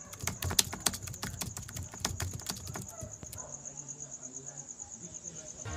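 An insect, cricket-like, trilling high and steady in rapid even pulses, under irregular sharp clicks and crackles that stop about three and a half seconds in.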